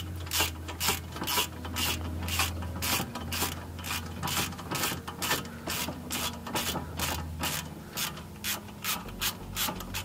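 Hand ratchet clicking steadily, about three clicks a second, as a bolt on a front steering knuckle is backed out. A steady low hum runs underneath and stops about eight seconds in.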